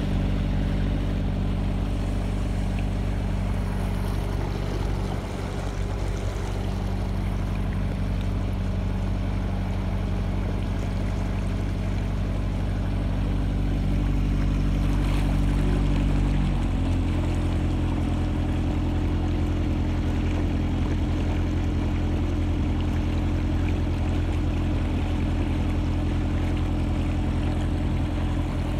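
Narrowboat's diesel engine running steadily while under way. Its note shifts about halfway through as the engine speed changes.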